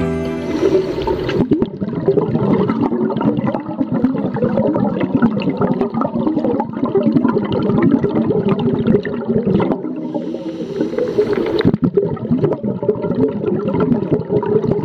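Water gurgling and bubbling with a dense crackle, heard through a camera held underwater, breaking off briefly a few times.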